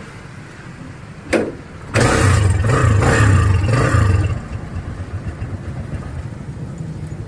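Kawasaki Barako motorcycle's single-cylinder engine starting while soaked with rain. A short sharp sound comes about a second in, then the engine catches and revs loudly for about two seconds before settling to a steady idle.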